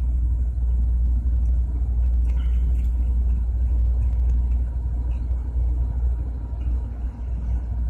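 A steady low rumble, with a few faint, light metallic clicks as a washer and nut are fitted by hand onto the centre stud of a compressor valve.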